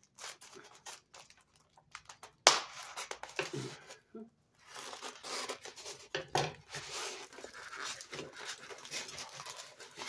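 A cardboard box and its packing being opened by hand: scattered clicks, a sharp snap about two and a half seconds in, then a long stretch of rustling and scraping of cardboard and packing material.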